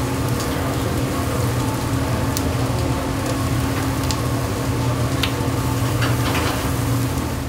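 Chicken sizzling on a char-grill over open flame, with a few sharp pops and crackles of fat. A steady low hum runs underneath.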